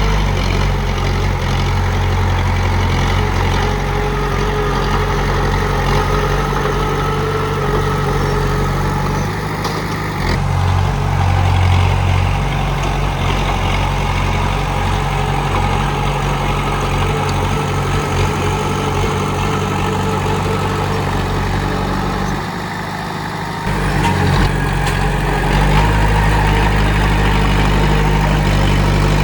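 Komatsu D31P bulldozer's diesel engine running steadily. Its note shifts about a third of the way through and drops briefly for about a second late on before picking up again.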